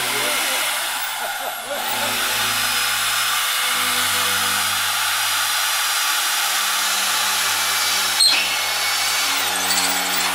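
Handheld Bosch power tool running steadily as it cuts into rusty sheet steel, with one sharp click about eight seconds in.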